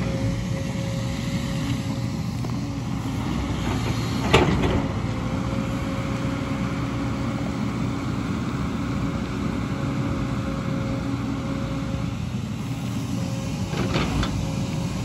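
Diesel engine of a JCB tracked excavator running steadily while it digs. A loud sharp clank comes about four seconds in, and a smaller knock near the end.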